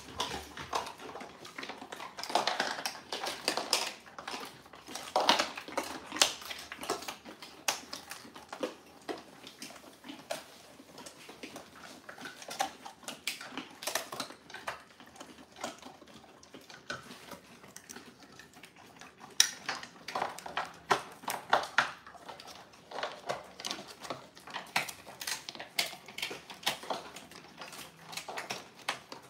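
Dogs crunching dehydrated pig ears: a continuous run of crisp, irregular cracks and crackles as the dried ear breaks between their teeth, with louder cracks here and there.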